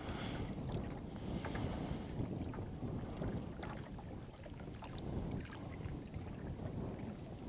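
Wind rumbling on the microphone over small waves lapping at a rocky shoreline, with a few faint clicks.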